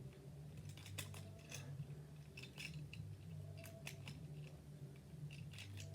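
Faint clicks and scrapes of plastic Rubik's cube pieces being pushed into place on a partly rebuilt cube, over a low steady hum.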